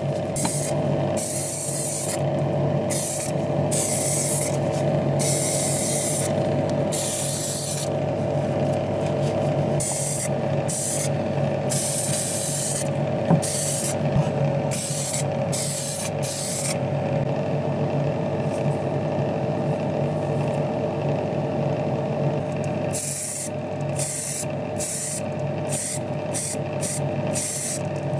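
Spray paint hissing out in many short bursts over a steady low hum; the bursts pause for several seconds past the middle, then resume.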